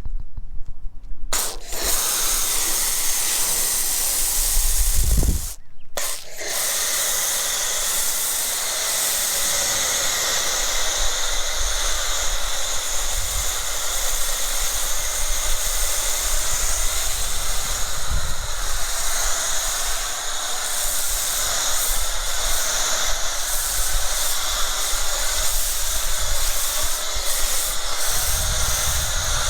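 Pressure-washer foam cannon spraying with a steady hiss. It starts about a second in, stops briefly around five seconds in, then sprays on steadily.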